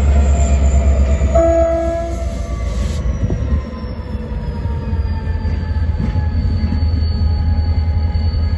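Medway diesel locomotive's engine running with a loud, deep throb, while a high whine slowly falls in pitch and the engine note drops a little about three and a half seconds in. A short horn blast sounds about a second and a half in.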